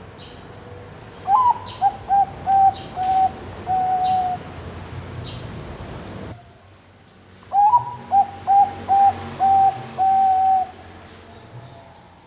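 Zebra dove (Bangkok-type perkutut) cooing its song twice: each phrase opens with a rising note, then a quick run of short clipped notes and ends on a longer held note.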